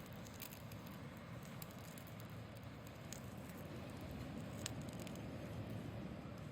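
Campfire burning, a steady low rustle with scattered sharp crackles and pops.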